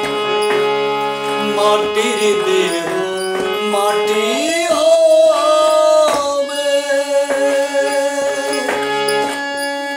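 Man singing a Bengali devotional folk song (dehatattva) over harmonium, holding long notes, with a rising slide into a long high note about four seconds in.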